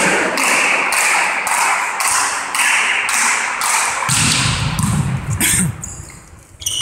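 Volleyball spectators clapping together in a steady rhythm, about two claps a second. The clapping gives way to voices about four seconds in.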